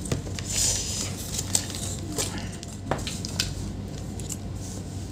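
A few light, scattered clicks and taps of metal multimeter probes and tools against a laptop circuit board, over a steady low hum.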